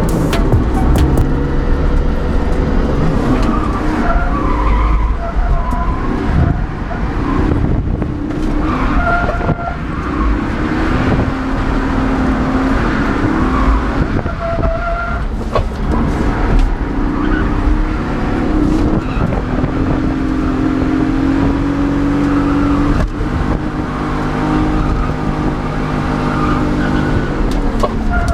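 BMW E36 engine revving hard, its pitch rising and falling as the throttle is worked, with the rear tyres skidding and squealing through a drift.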